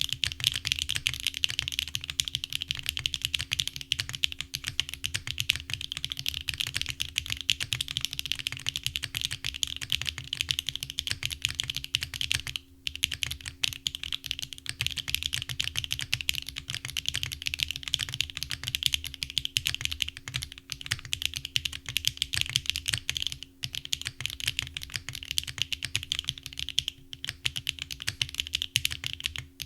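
Continuous fast typing on a mechanical keyboard fitted with Akko Cilantro switches, factory-lubed long-pole tactile switches made with HMX, giving a deep, clean clack on each keystroke. The typing pauses briefly about 13 and 23 seconds in, and a faint steady hum runs underneath.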